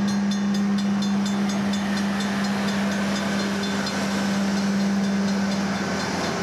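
Railroad crossing warning bell ringing in rapid, even strokes over the steady engine drone of a yellow railway maintenance-of-way machine crossing the road.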